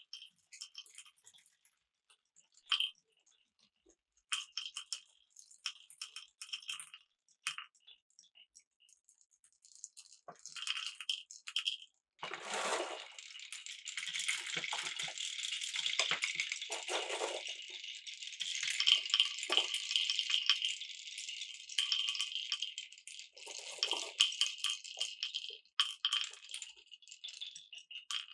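Marbles rolling and clicking along a wooden marble run with plastic pipes: scattered clicks and short rolls at first, then from about halfway a dense, continuous rattle of many marbles running at once.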